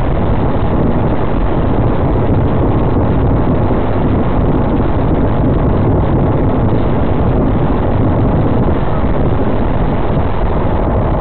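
A moving vehicle's steady, loud rumble of road and wind noise.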